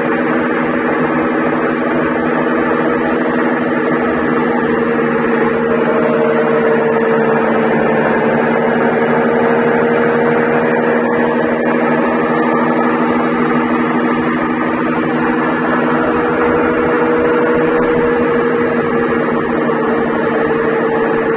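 Brastemp 11 kg washing machine in its spin cycle, making a very loud, steady droning hum: a sign of worn bearings in its mechanism kit.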